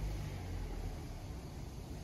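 A pause in speech filled by steady background noise: a low rumble with a faint hiss.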